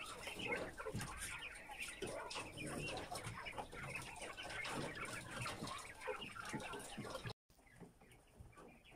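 A flock of white giant polar quail calling and chirping, many short overlapping calls. About seven seconds in the sound cuts off abruptly and the calls continue fainter.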